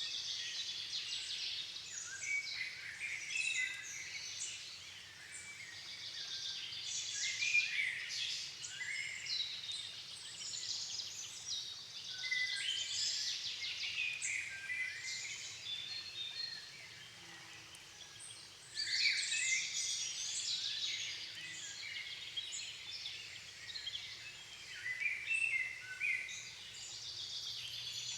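Dusk chorus of many songbirds singing at once in a floodplain forest, overlapping phrases and chirps, with a brief lull about two thirds of the way through before the singing picks up again.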